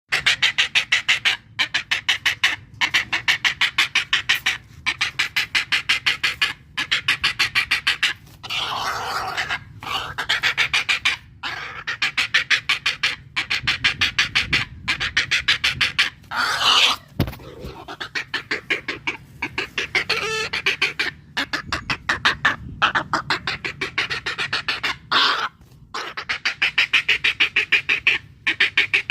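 A bird's rapid chattering call, fast even pulses repeated in runs of a second or two with short breaks between.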